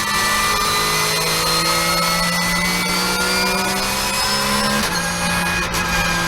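Porsche 991.1 Cup car's 3.8-litre flat-six engine pulling hard on track, its pitch rising steadily, with a gear change about five seconds in.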